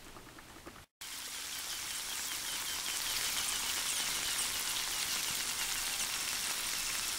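Cheese-topped baked potatoes sizzling in their glass casserole dish: a steady hiss with fine crackling, starting after a brief gap about a second in.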